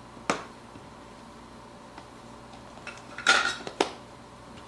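Coffee scoop and plastic brew basket knocking together as ground coffee is tipped in: one sharp tap, then about three seconds later a short clatter followed by a click.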